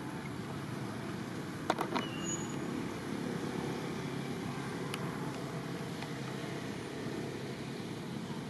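Steady outdoor background noise, a low even rumble like distant traffic or wind. Two sharp clicks come a little under two seconds in and one more at about five seconds.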